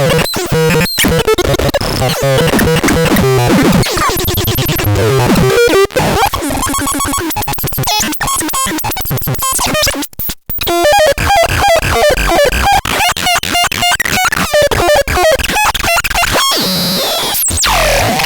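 Glitchy electronic synthesizer noise music: rapidly chopped, stuttering tones and noise bursts, with a short dropout about ten seconds in and a steep falling pitch sweep near the end.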